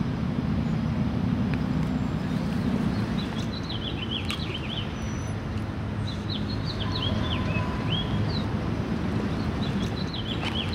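Small birds chirping in three quick clusters of short descending notes over a steady low rumble of outdoor background noise.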